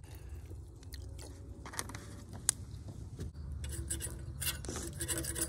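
Orange juice poured from a plastic jug into a plastic cup, then a few sharp clicks and crinkling plastic wrap with eating sounds, over a steady low rumble.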